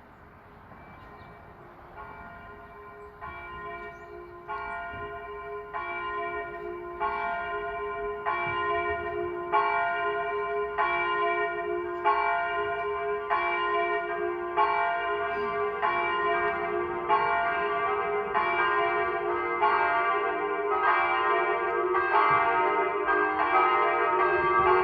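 Church bells ringing, struck about one and a half times a second, starting faint and growing steadily louder.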